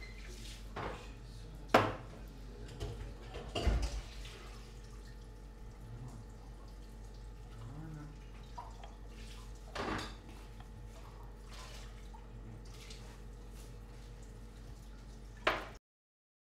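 Cups and a steel milk pitcher being handled at an espresso machine: several sharp clinks and knocks, the loudest about two seconds in, over a low steady hum. The sound cuts off suddenly just before the end.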